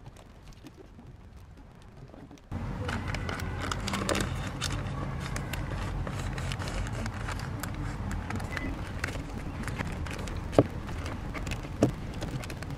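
Thin white wrapping paper being folded and creased around a parcel by hand: soft crinkling and rustling. About two and a half seconds in a louder steady background hum comes in suddenly, and near the end there are two sharp taps.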